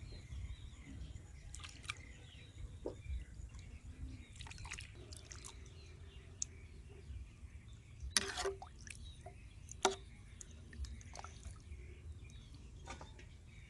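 Raw pig intestines going into water in a metal wok: faint scattered splashes and drips, with louder splashes about eight and ten seconds in, over a low steady rumble.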